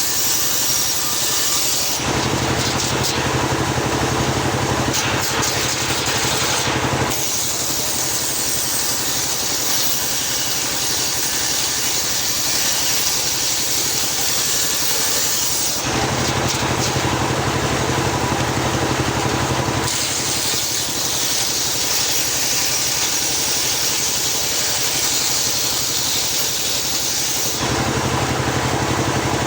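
Homemade circular-saw sawmill running steadily while ripping a teak log: an engine drone under the hiss of the blade cutting through the wood. The sound switches several times between a hissier, higher stretch and a heavier, lower drone.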